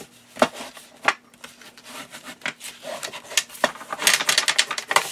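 Hands rubbing and sliding over sheets of paper. Sharp clicks come twice in the first second or so, then a quick rattle of clinks near the end from a very noisy bracelet knocking against the desk.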